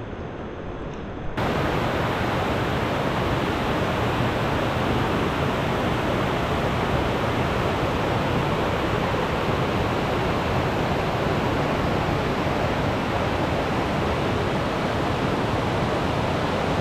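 Water flowing over a rocky riverbed, quieter for about the first second, then a sudden cut to the loud, steady rush of white-water rapids and a small cascade in a river running high.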